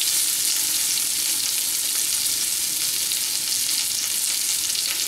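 Chunks of boiled potato frying in hot oil in a kadai: a steady sizzle with fine crackling.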